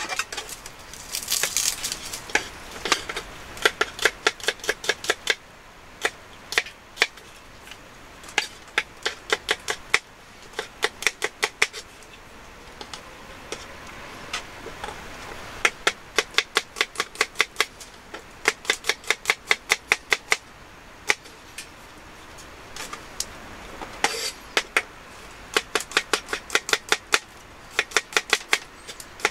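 Kitchen knife chopping garlic and onion on a wooden cutting board: runs of quick, sharp knocks, about five a second, broken by short pauses.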